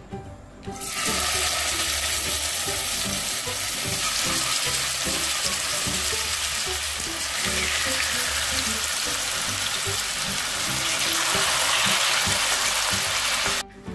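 Marinated chicken pieces frying in hot coconut oil in a non-stick pan: a steady sizzle starts about a second in as the pieces go into the oil, and cuts off suddenly just before the end.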